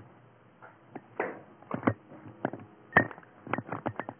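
Irregular clicks and knocks, with a few short rustling bursts and one sharper knock about three seconds in.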